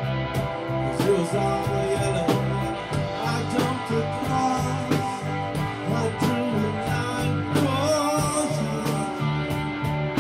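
A rock band playing live: electric guitar, electric bass and a drum kit keeping a steady beat.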